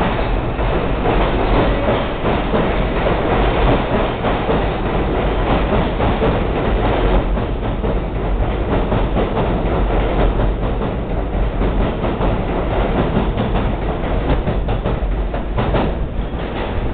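R62A subway train pulling out of the station and running away into the tunnel: a loud, steady rumble of wheels on the rails, with many repeated clicks and clatters.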